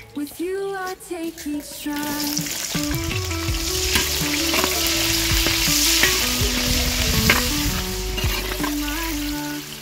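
Sliced red onions sizzling in hot oil in a large metal pan, starting about two seconds in, with a metal spoon scraping and clicking against the pan as they are stirred.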